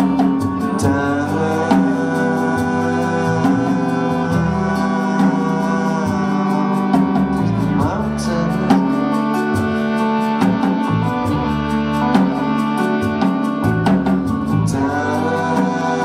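Live band playing: fiddle and strummed acoustic guitar over upright bass and a steady drum beat, with a man singing.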